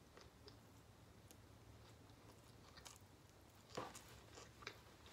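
Faint close-up chewing and mouth sounds of a person eating a blackened mahi-mahi sandwich: scattered soft clicks and wet smacks, the loudest one about four seconds in.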